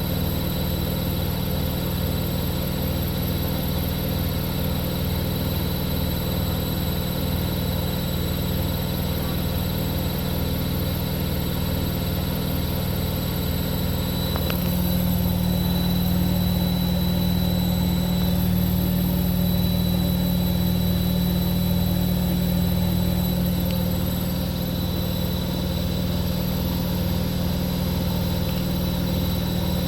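Continental Edison washing machine spinning on its 1200 rpm spin cycle: a steady motor hum and high whine over a low throb that pulses about once a second, getting a little louder about halfway through.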